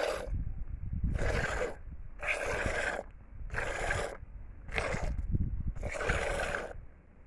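Goat milk squirting from a hand-milked teat into a plastic bowl of foamy milk: a short hissing spurt with each squeeze, about one a second, over a low rumble.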